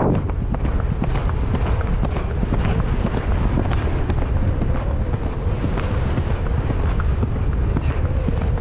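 A horse galloping on turf, its hoofbeats thudding in a steady stream, with wind buffeting the microphone.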